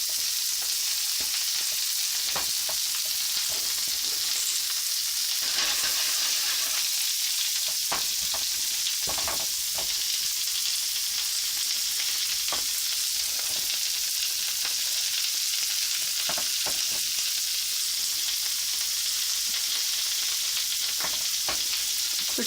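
Vegetables sizzling steadily as they fry in a hot pan, with a few scattered clicks and knocks.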